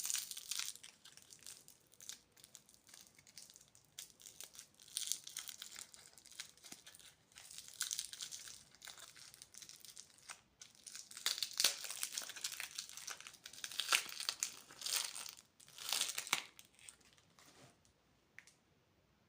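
Plastic candy wrappers crinkling and tearing as they are opened, in irregular bursts that are loudest in the second half.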